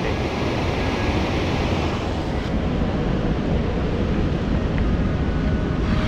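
Steady rush of river rapids and cascading water, an even roar with no breaks.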